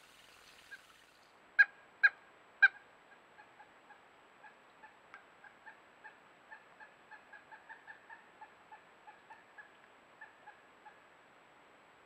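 Pileated woodpecker calling: three loud, sharp notes in quick succession, then a long run of softer, evenly pitched notes at about three a second.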